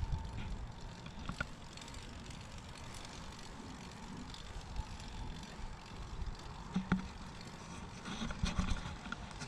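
Cannondale Hooligan bicycle riding over concrete, heard from a GoPro on the bike: a steady low rumble of tyre and wind noise, with a few small clicks and rattles from the bike, most of them around seven to nine seconds in.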